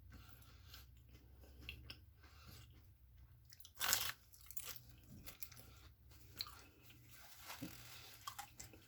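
Close-up chewing of a Jollibee peach mango pie, its fried crust crunching between the teeth, with one louder crunchy bite about four seconds in.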